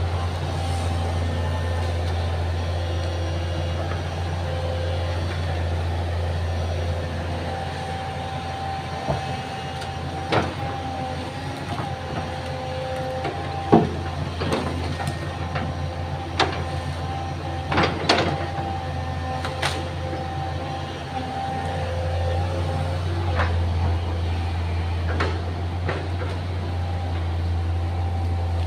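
Excavator's diesel engine running steadily with a higher whine above it, and a series of sharp knocks and clanks through the middle stretch, the loudest about halfway through.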